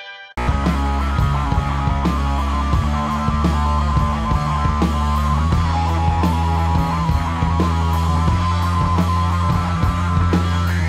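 Instrumental rock music with electric guitar over bass and a steady drum beat, coming back in loudly a moment after a brief quiet break.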